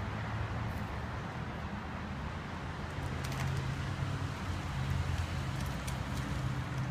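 Steady low rumble of road traffic, with a few faint light ticks around the middle and near the end.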